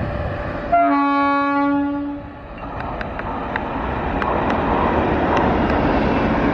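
An Indian Railways WAP-7 electric locomotive sounds its horn in one long blast of about a second and a half. The train then runs past, its wheels clacking over rail joints.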